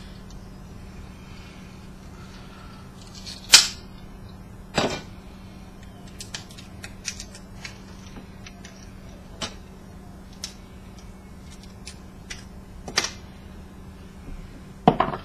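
Plastic coil bobbins and clips being snapped apart and pieces clicking on a workbench: a few loud sharp cracks, about three and a half, five, thirteen and fifteen seconds in, among lighter ticks and clicks, over a steady low hum.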